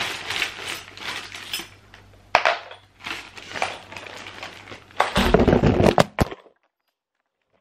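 A clear plastic bag of metal sofa-assembly screws and fittings crinkling and clinking as it is opened and handled. About five seconds in there is a loud, heavy rumble and knocking as the camera is jostled and tips over, and the sound cuts off suddenly about a second later.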